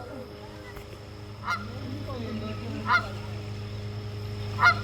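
Goose honking: four short honks about a second and a half apart, the last the loudest, over a steady low hum.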